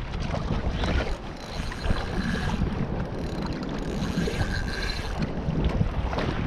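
Wind buffeting the microphone over water slapping and sloshing against a kayak in choppy sea. Two brief higher whirrs come through, about two seconds in and again near the middle.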